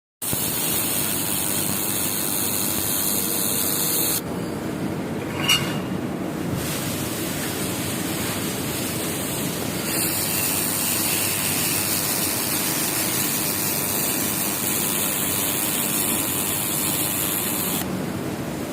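RECI FC1500 laser welding machine running with a steady hiss. The hiss drops back about four seconds in, with a single click about a second later, and returns.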